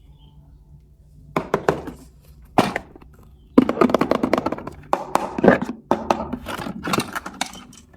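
Plastic toys being handled. A few separate clicks and knocks come first, then a dense run of rapid clattering clicks starts about three and a half seconds in.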